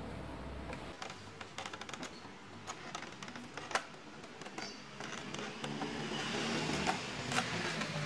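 Rapid small clicks and scraping as the cover plate over the stand mount on the back of a Dell OptiPlex 9010 all-in-one is pried off with a flat tool. There is a sharp click a little before halfway and more sharp clicks near the end as the plate comes loose.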